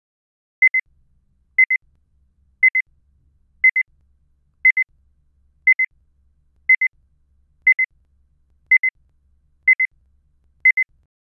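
Electronic beeping: a short, high double beep once a second, eleven times in all.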